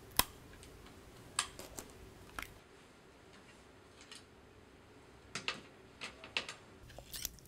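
Faint, scattered small clicks and taps as a laptop optical drive's metal bracket and ribbon cable are handled and worked with a small screwdriver.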